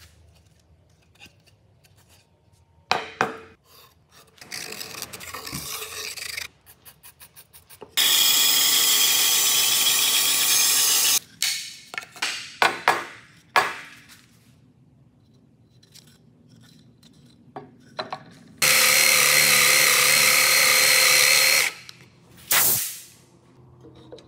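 Workshop sounds of a wooden blank being prepared: knocks and rubbing of wood being handled, then a bandsaw cutting the zelkova blank for about three seconds. After some clatter, a second power tool runs for about three seconds, followed by a thump.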